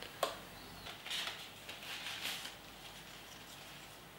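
Faint handling sounds of a helmet being put on: a small click near the start, then a few soft scuffs and rustles of the helmet shell and straps.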